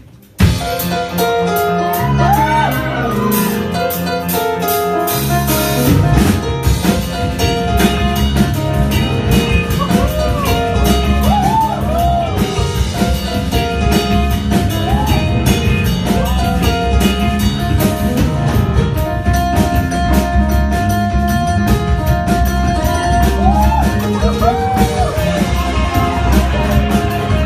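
Live rock band of piano, electric guitar, bass guitar and drum kit playing a fast instrumental arrangement. The band comes in together right at the start, and the drums settle into a full steady beat about six seconds in.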